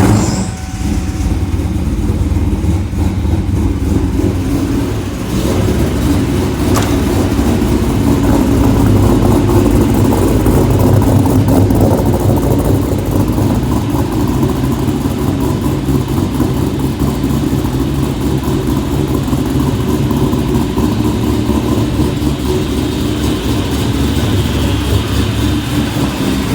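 Ford 347 stroker V8 in a Fox-body Mustang, breathing through long-tube headers, an X-pipe with no catalytic converters and a Magnaflow 4-inch muffler, heard from inside the car: it fires up suddenly at the start and then runs steadily and loudly.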